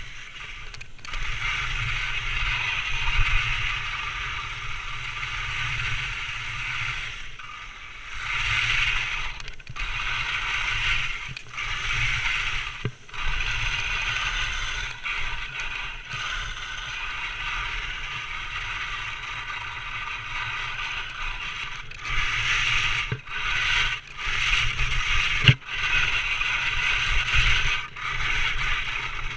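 Skis scraping and hissing over firm snow on a downhill run, swelling and fading every second or two, with a few sharp clicks. A low rumble of wind on the microphone runs underneath.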